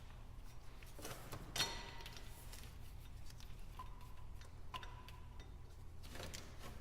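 Faint metallic clicks and clinks of hand tools working under the hood as the serpentine belt is refitted after the alternator swap. One sharper clink about a second and a half in rings briefly, and two more short ringing taps come later, over a low steady hum.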